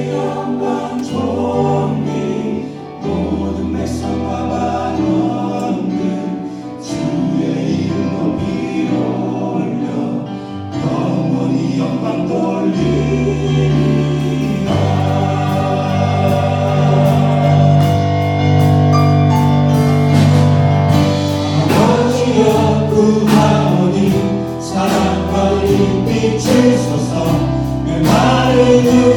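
Praise team choir singing a worship song with band accompaniment over sustained bass notes; the beat grows stronger from about halfway through.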